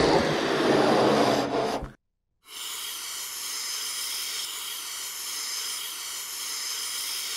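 Cartoon sound effect of a balloon inflating on a bottle's neck: a louder rushing air sound for about two seconds, a short break, then a steady, quieter hiss.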